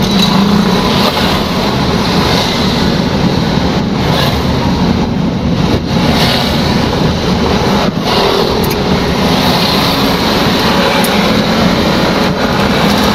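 Steady engine and road noise from a vehicle driving along a rough road.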